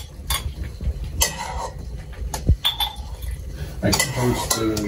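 Metal ladle clinking against a stainless steel pot as hot mulled wine is ladled into mugs; several separate clinks, one ringing briefly.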